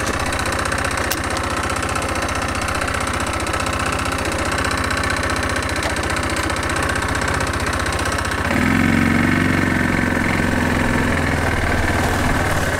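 Bashan 250 Chinese quad's engine running steadily under way, getting louder and heavier about eight and a half seconds in.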